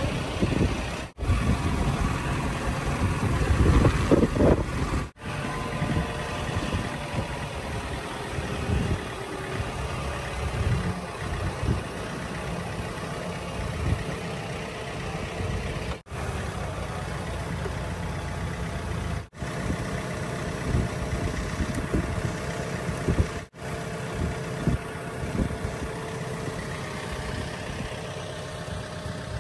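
Farm tractor engine idling steadily. Wind rumbles on the microphone during the first few seconds.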